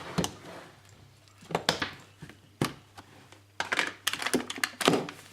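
Kitchen handling noises: scattered knocks and clicks with short rustling stretches, about a second and a half in and again near the end.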